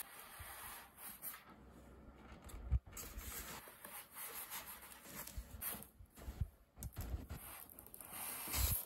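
Styrofoam packing blocks rubbing and scraping against a cardboard box as an air fryer is slid out of it, with scattered taps and one sharp thump about three seconds in.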